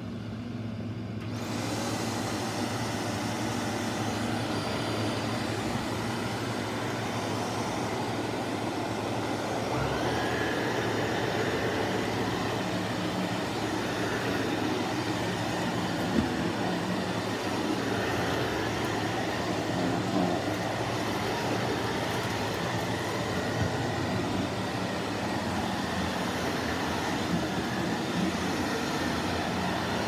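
Shark Navigator Lift-Away Professional upright vacuum cleaner running on a rug: the motor spins up to speed in the first couple of seconds, then a steady whirring hum and rush of air as it is worked over the carpet, with a couple of brief ticks along the way.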